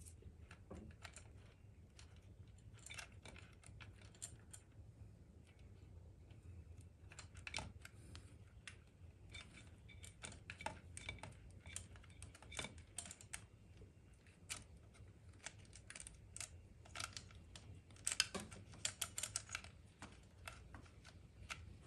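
Faint, irregular small clicks and taps from hands working a timing chain onto the crankshaft gear of a Polaris Sportsman engine, coming thicker near the end.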